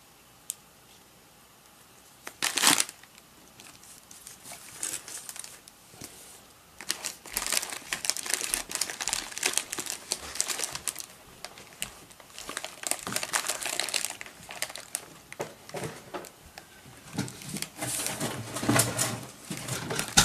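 Plastic packaging crinkling and rustling as a laptop screen panel is handled on a padded plastic mailer. There is a single sharp rustle about two and a half seconds in, then near-continuous crinkling from about seven seconds on, loudest near the end.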